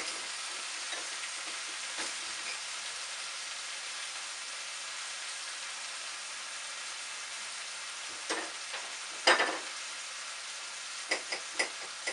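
Steady sizzling of wet boiled beet greens in a hot frying pan. A few sharp knife strokes on a cutting board cut across it, the loudest about nine seconds in and a quicker run near the end, as garlic is cut.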